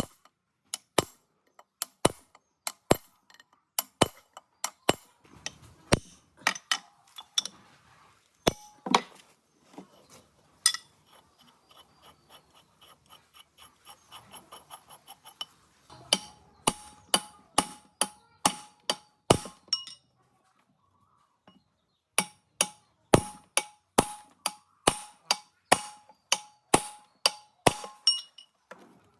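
Hammer tapping on metal, about two to three blows a second, many with a short ringing tone. In the middle a faster run of light ticks takes over for a few seconds, and the blows stop for about two seconds roughly two thirds of the way through.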